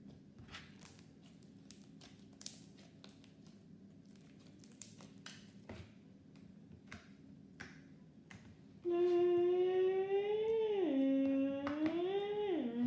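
Faint scattered clicks and crackles of slime being kneaded and poked by hand. About nine seconds in, a child starts humming loudly, a tune that slides down and back up in pitch.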